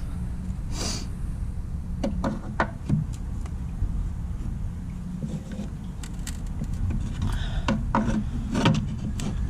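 Scattered clunks and scraping of metal suspension parts as a new upper control arm is forced into place on a car's front end, over a steady low rumble.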